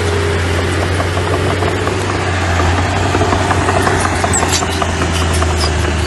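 Diesel engine of a small earthmoving machine running steadily with a low hum, with rattling and clanking throughout. A few brief high squeaks come around four to five seconds in.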